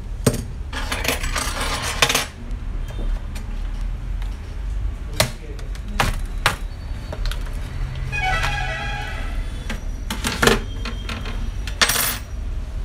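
Sharp plastic clicks and knocks with some scraping as the bottom cover of a Dell Inspiron 2-in-1 laptop is pried loose and lifted off, its clips snapping free one after another.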